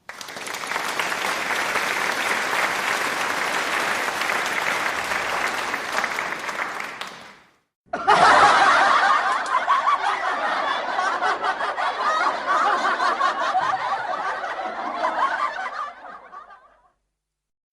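Stock sound effect of an audience applauding for about seven seconds. After a short break, a crowd laughs for about eight seconds and fades out.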